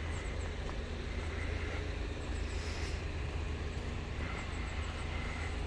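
Steady low rumble of road traffic queued at a level crossing with the barriers lowered, with faint short high chirps here and there.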